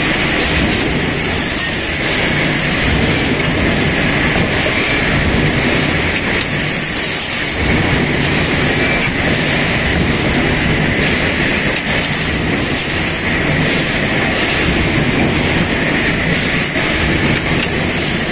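Steady, dense machinery noise of an automatic brake pad back plate production line and its stamping presses running, with no distinct press strokes standing out.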